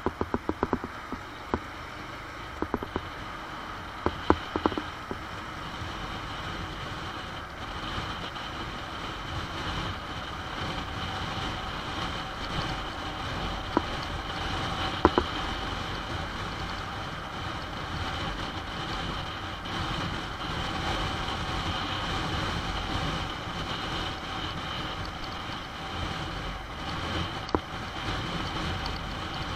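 Honda NC750 motorcycle on the move, its parallel-twin engine running under steady wind and road noise that grows louder over the first several seconds, then holds. A few sharp clicks near the start.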